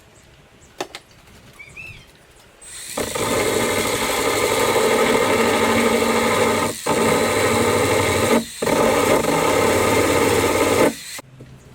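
Handheld power tool running for about eight seconds, stopping briefly twice, as it carves down the carbon fiber hood around the hood pin mounting.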